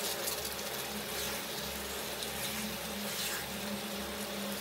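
A pan of chicken curry cooking on the stove: a steady low sizzling hiss with faint scrapes.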